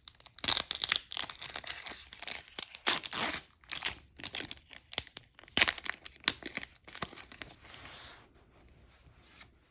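Foil wrapper of a small Pokémon card booster pack being torn open and crinkled by hand: a dense run of crackling tears and rustles for about eight seconds that then dies away.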